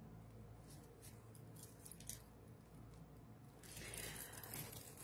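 Near silence: faint rustling and small clicks of things being handled, over a low steady hum, with a slightly louder rustle near the end.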